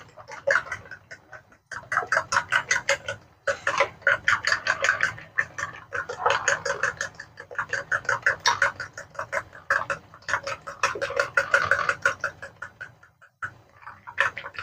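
Metal fork beating raw eggs in a ceramic bowl: rapid, even clicking of the fork against the bowl with the wet slap of the egg, about eight to ten strokes a second, with a couple of brief pauses, trailing off near the end.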